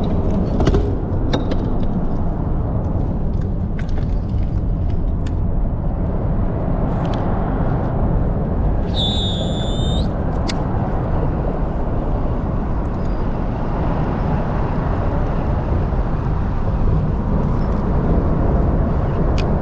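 Boat running on the lake: steady engine rumble mixed with wind noise on the microphone, with a brief high-pitched tone about nine seconds in.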